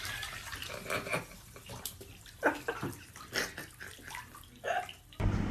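Water splashing and sloshing in a handful of short bursts with quiet gaps between them.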